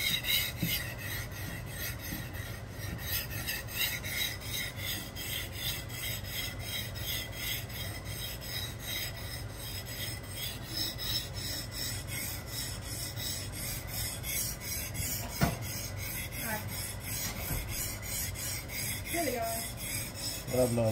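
Steel knife blade stroked back and forth across a 1000-grit whetstone: a steady, even rasp of metal on stone, repeated stroke after stroke. A single sharp knock about three-quarters of the way through.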